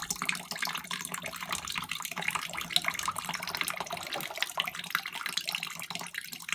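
Water trickling and splashing steadily out of a furnace's disconnected condensate trap and drain line, with a low steady hum underneath. The flow is the backed-up condensate from a trap that appears to be a little bit plugged.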